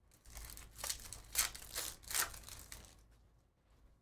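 Foil wrapper of a Topps Chrome Formula 1 Sapphire trading-card pack being torn open and crinkled by hand. A run of rustling tears, the loudest just past the middle, dying away near the end.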